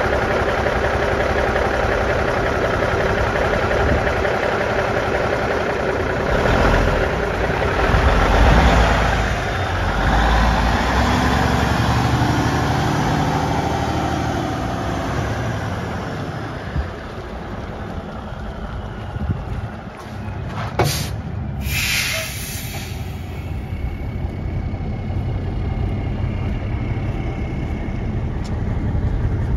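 Cummins 350 hp diesel engine of a 1992 Kenworth tanker truck running, getting louder for a few seconds around six to ten seconds in, then settling back to a steady idle. About 21 seconds in there is a sharp click, followed by a short hiss of air from the truck's air brakes.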